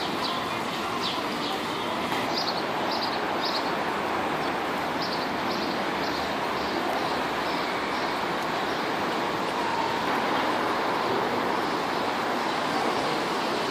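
Steady rushing outdoor noise, with a run of short, high chirps or ticks during the first six seconds or so.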